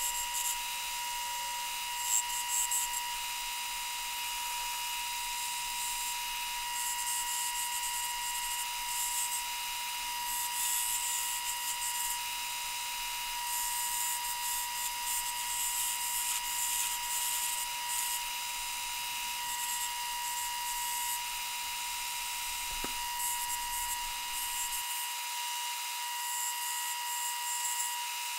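Wood lathe running with a steady motor whine while a hand-held turning tool cuts a small mahogany chess piece, giving repeated bursts of hissing scraping.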